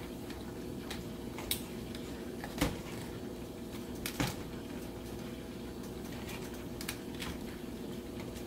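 Metal kitchen tongs clicking and clacking against king crab legs and a stainless steel pot as the legs are turned, a handful of sharp clicks over a steady low hum.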